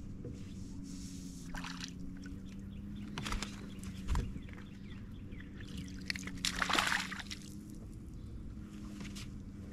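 Water splashing and sloshing in short bursts against a small fishing boat, the longest splash a little past halfway, over a steady low hum.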